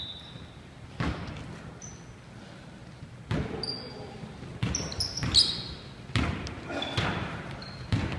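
A basketball bouncing on a hardwood gym floor, about eight bounces at uneven spacing, coming closer together in the middle, each ringing in the large hall.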